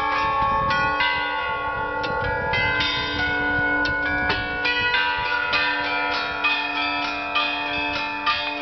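Federation Bells, a carillon-like installation of upturned bronze bells on poles struck by computer-controlled hammers, ringing a piece. Struck notes come several times a second and overlap into a sustained, layered ringing.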